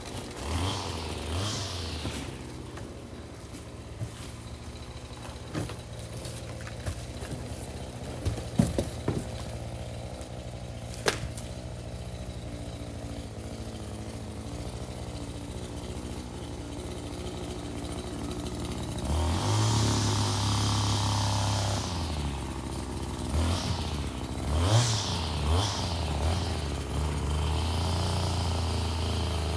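A small two-stroke engine running steadily, with a few clicks and knocks near the middle and a louder stretch about two-thirds of the way in.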